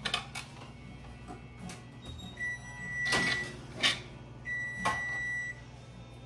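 Two long electronic beeps from the oven's controls, each about a second, mixed with sharp knife taps on a wooden cutting board and a clatter as a baking pan goes onto the oven rack.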